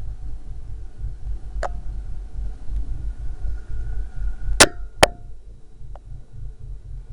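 Keychain camera knocking against the rim and wall of a PVC well casing as it is lowered into it, over a continuous low rumble. There are a few sharp knocks, and the loudest two come close together a little past halfway.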